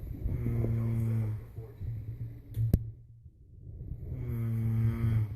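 A person snoring: two long snores about three seconds apart, each lasting about a second. There is a single sharp click between them.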